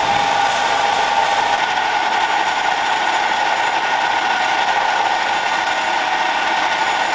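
Homemade wood lathe running steadily, spinning a wooden axe handle while sandpaper and then a cloth are pressed against it, giving a rubbing hiss over the machine's steady hum.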